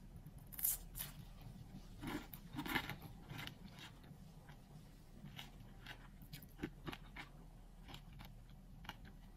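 Crisp, flaky puff-pastry cream horns crackling faintly as they are handled and lifted off a metal tray: a scatter of small crunches and light taps, a few of them sharper.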